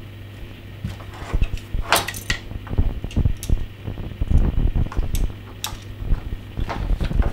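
Light knocks, clicks and a few metallic clinks as a flat door feed-through network cable is handled and pressed into place against a door frame beside its metal hinge, over a low steady hum. The loudest is a ringing clink about two seconds in.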